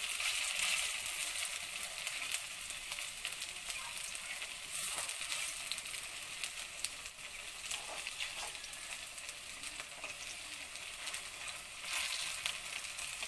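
Gram-flour-battered Malabar spinach pakoras deep-frying in hot oil in a kadai: a steady sizzle with small crackles, as the pakoras are turned with a steel spatula. The sizzle swells briefly about half a second in and again near the end.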